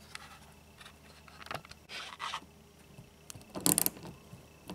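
Ratchet socket wrench clicking in one quick burst a little before the end, with faint scraping of the tool on the fastener before it, as a fastener holding the rear diffuser is undone.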